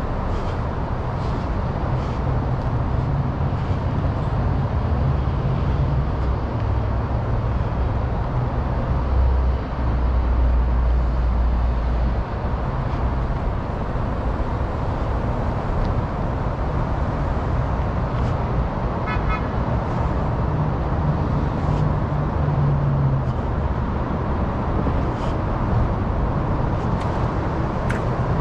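City street traffic: a steady rumble of car and bus engines running and passing, swelling heavier as a large vehicle passes close about ten seconds in. A brief, high-pitched beep cuts through about two-thirds of the way through.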